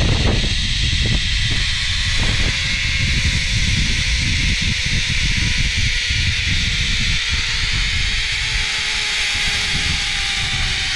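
Zipline trolley pulleys running along the steel cable: a steady rushing hiss with wind on the microphone, and a faint whine that slowly falls in pitch.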